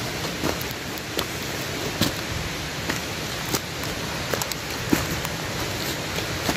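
Footsteps through dry fallen leaves and twigs on a woodland slope: irregular crunches and snaps, about one every second or so, over a steady rushing noise.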